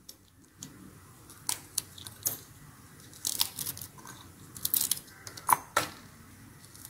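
Green chillies snapped in two by hand and dropped into a stainless-steel mixer-grinder jar: a scattering of short, sharp snaps and light clicks as the pieces break and land on the steel and the blades.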